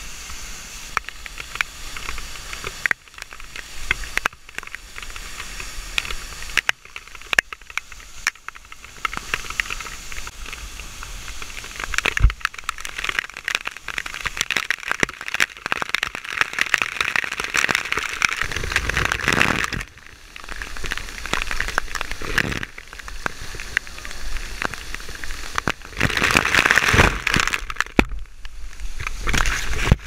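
Waterfall spray hitting a body-worn camera at close range: a dense crackle of droplet hits over the rush of falling water. It swells louder about halfway through and again near the end.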